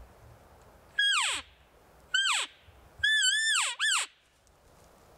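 Four high, squealing cow-elk mews, each falling steeply in pitch. The third wavers before it drops, and the last follows it closely.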